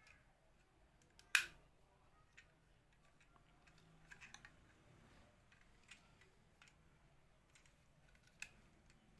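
Scattered sharp clicks and taps over faint room tone, the loudest about a second and a half in, with a short run of quick clicks near the middle.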